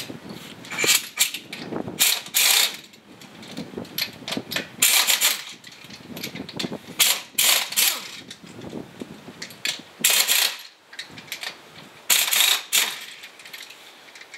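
Pneumatic impact wrench run in short bursts with pauses between, spinning already-loosened wheel nuts off a car wheel.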